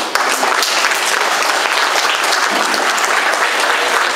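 An audience applauding, dense and steady.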